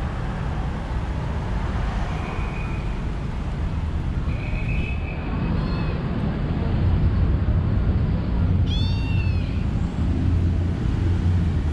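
Kitten meowing: a couple of short, high mews in the first half and one clearer, arched meow about three quarters of the way through, over a steady rumble of street traffic.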